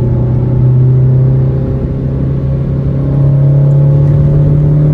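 1994 Honda Accord EX's 2.2-litre four-cylinder engine and road noise heard from inside the cabin while driving. The engine's hum is steady, then rises in pitch and gets louder a little past halfway as the car accelerates.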